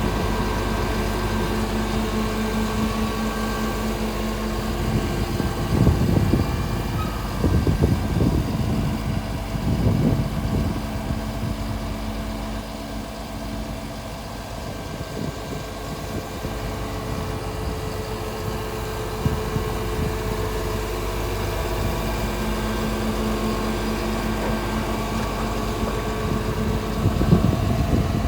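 Volvo P7110 tracked asphalt paver's D8H diesel engine running steadily, with a few brief louder low bumps between about six and ten seconds in and again near the end.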